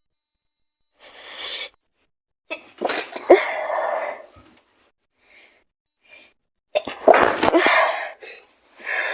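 A woman with a feverish cold sneezing twice, each sneeze a loud burst after a drawn-in breath, with small sniffs between them and another in-breath starting near the end.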